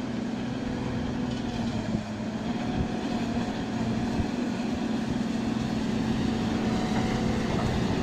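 Wheel loader with a V-snowplow pushing through deep snow, its diesel engine running steadily under load with a constant low hum.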